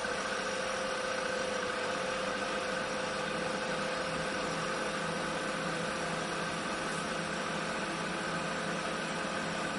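Danfoss R134a refrigeration compressor running steadily with its cooling fans: an even hum with a constant mid-pitched tone over a whirring hiss.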